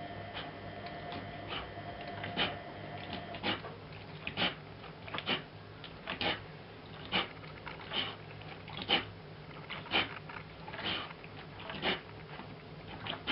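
Newborn puppies squeaking, short high-pitched cries repeating about once a second.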